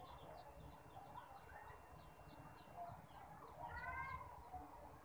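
Faint chicken sounds: a rapid string of short, high peeps, with a louder drawn-out call about four seconds in.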